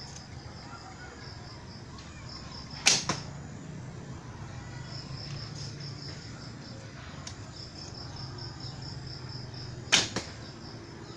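Two shots from a handmade fiberglass horn-bow replica, about seven seconds apart: each a sharp snap of the bowstring on release, followed a moment later by a softer knock. Crickets chirp in fast pulsed trills throughout.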